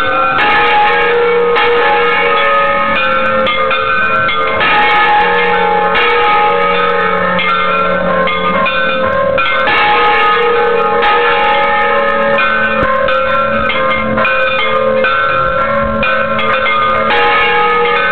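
Church bells ringing a festive Mexican repique: several bells struck in quick succession, their tones overlapping in a continuous loud clangour heard close up in the bell tower.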